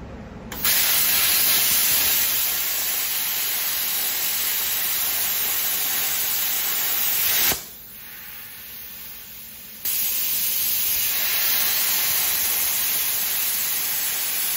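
Eastwood Versa-Cut 60 plasma cutter torch cutting scrap steel: a loud, steady hiss of air and arc. It cuts off suddenly about seven and a half seconds in, stays quieter for about two seconds, then starts again for a second cut.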